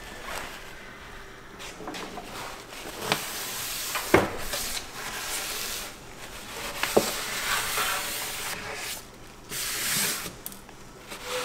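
A crumpled wipe rubbing and scrubbing across the bottom of a wooden kitchen drawer, with two sharp knocks about four and seven seconds in.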